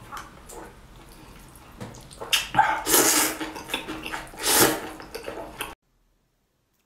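Loud, wet slurping of thin noodles and soup, in several slurps; the longest comes about two and a half seconds in, and another about four and a half seconds in. The sound cuts off suddenly about a second before the end.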